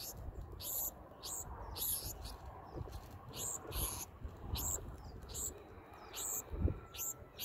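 Black-throated sparrow fledgling begging for food: short, high-pitched chirps repeated about twice a second as the adult feeds it beak to beak.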